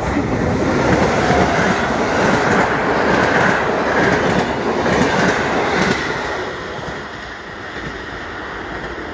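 Locomotive-hauled passenger train, a PKP Intercity EU160 Griffin electric locomotive and its coaches, running through the station at speed. Its wheels rumble and clatter over the rail joints, and the sound drops away after about six seconds.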